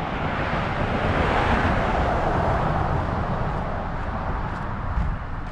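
A vehicle passing, its noise swelling over the first two seconds or so and fading away, over a steady low rumble of wind on the microphone.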